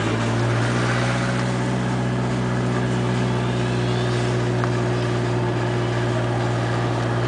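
Car engine running steadily at low revs, heard from inside the cabin while the car rolls slowly: a low, even hum that holds one pitch.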